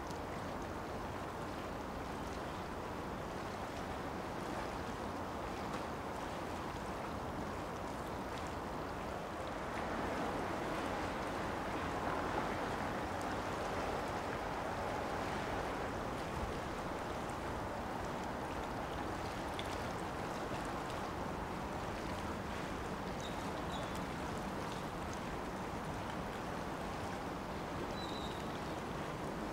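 Steady waterside ambience of wind and water noise, swelling slightly about ten seconds in.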